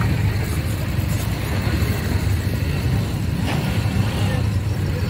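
Several ATV (quad bike) engines running as the quads drive past in a line over snow, a steady low engine drone.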